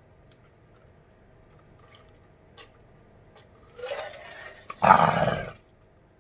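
A man drinking from a large jug, with a few faint swallow clicks. About five seconds in comes a loud, rough breathed-out 'ahh' after the drink.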